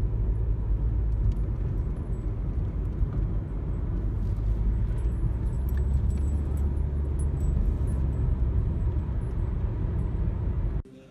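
Car interior while driving: a steady low rumble of engine and tyres on the road, with faint small rattles. It cuts off suddenly near the end.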